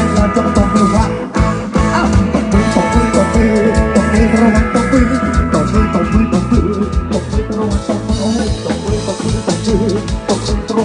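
A band playing rock-style music, with a drum kit keeping a steady beat under electric guitar chords.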